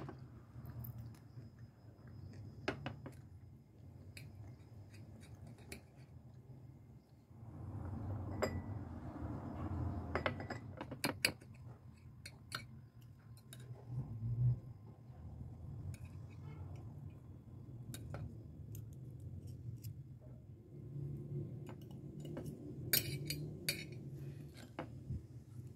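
Metal fork and knife clinking and scraping against a ceramic dish while cutting food, in short, irregular clicks.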